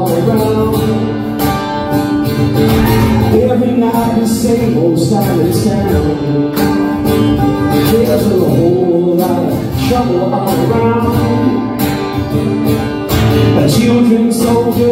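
Live acoustic guitar strummed in a steady rhythm, with a man singing along into a microphone.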